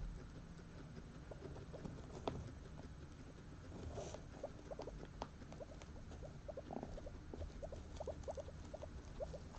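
Domestic guinea pigs making a run of soft, short squeaks, a few a second, that grow more frequent from about halfway through. A single light knock comes a little after two seconds in.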